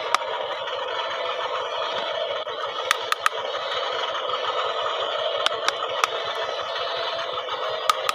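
Radio-controlled model excavator's small motors whirring steadily, with sharp clicks every second or so.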